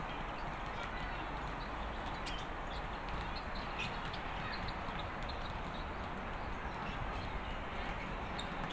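Steady outdoor city hum of distant traffic heard from high up, with faint short bird chirps scattered through it.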